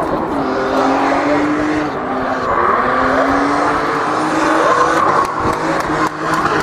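Drift car's engine revving hard, its pitch rising and falling repeatedly, over the hiss of tyres spinning and sliding on tarmac.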